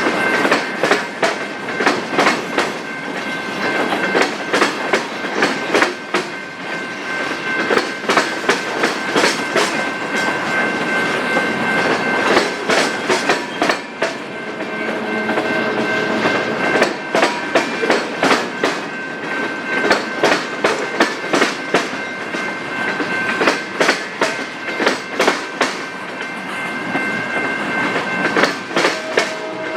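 Freight train cars rolling past, their wheels clacking over rail joints in a continuous run of sharp clicks over a steady rumble, with a thin steady high-pitched tone running along with it.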